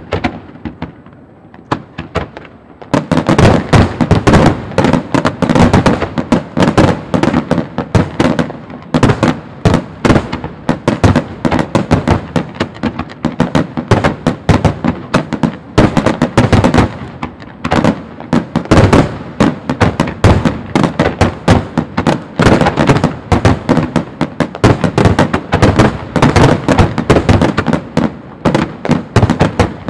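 Starmine fireworks barrage: aerial shells fired in rapid succession and bursting in a dense run of sharp bangs. A few scattered bangs at first, then packed tightly together from about three seconds in.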